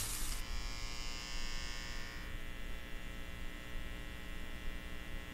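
Steady electrical hum and buzz made of many even tones, with a higher hiss over it that fades out about two seconds in.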